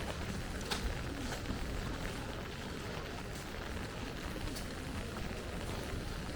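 Light rain falling steadily on an umbrella over a wet city street, an even hiss with a few faint ticks of drops.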